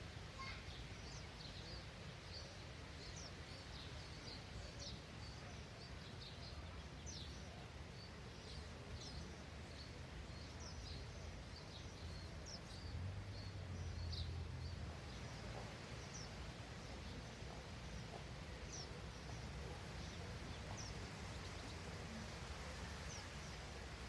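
Small birds chirping: many short, high chirps scattered through, over a faint low outdoor rumble that swells briefly about halfway through.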